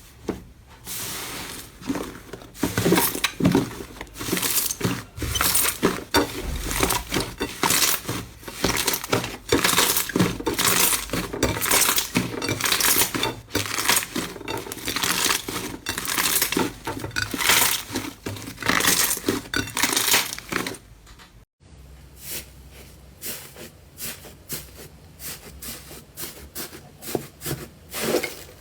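Slime being pressed and squished by hands, giving dense crackling and popping clicks. A little over two-thirds through, the sound cuts off suddenly and gives way to softer, quieter crackles.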